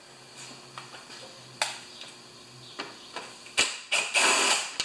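Cordless drill-driver running in short bursts in the last second and a half, after a few faint clicks, backing out the bolts that hold the top cover on a Briggs & Stratton Quantum lawnmower engine.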